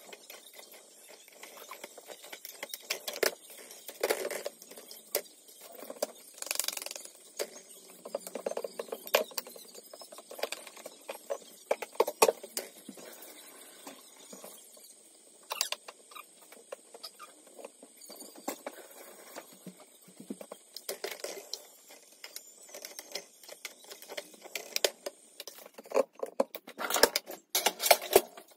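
Irregular light clicks, taps and scrapes of metal tongs and a tawa griddle pan being handled on a gas hob while chapatis are cooked and puffed over the flame, with a busier run of clatter near the end.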